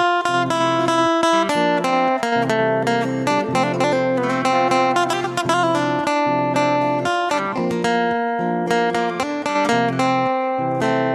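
Background music: a melody of plucked acoustic guitar notes, with a note starting every fraction of a second.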